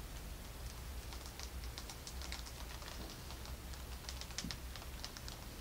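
Several pet rats eating dry food in a bed of wood shavings: quick, irregular crunching and clicking of their chewing.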